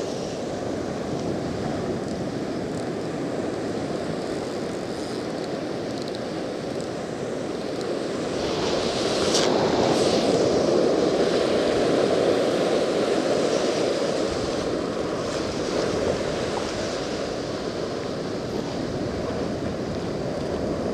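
Small ocean waves washing in and out over the shallows, with wind buffeting the microphone. The wash swells louder about eight seconds in, with a brief splashing rush near ten seconds, and then eases back.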